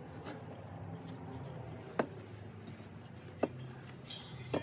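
Hands handling a cut-open Yamaha R6 stock muffler: the packing rustles and scrapes as it is pulled off the perforated core, with three sharp clicks along the way.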